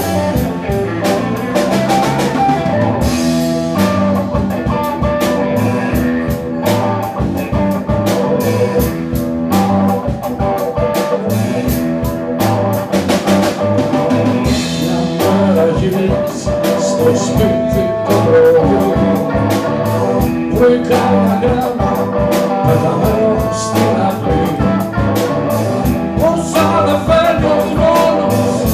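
Live blues-rock band playing: electric guitar, drum kit, bass and keyboard, with singing.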